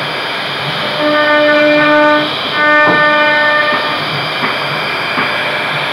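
CNC router cutting a wood relief: a steady hiss of the spinning cutter in the wood, overlaid by a whine in several steady tones that comes and goes twice, typical of the machine's stepper motors as the axes move.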